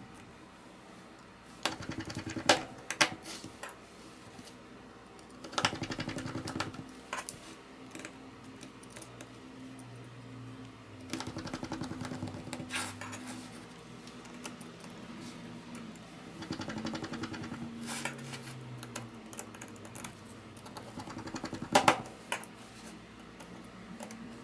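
Sharp clicks and taps of small tools and phone parts being handled, with a low hum that comes and goes; the loudest clicks are a close pair near the end.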